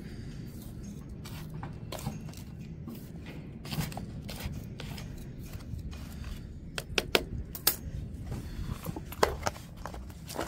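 A small metal trowel digging and scraping through loose potting soil in a plastic pot, with sharp clicks and knocks of metal and plastic that come thickest in the second half. The soil is being loosened to lift out rooted marjoram cuttings.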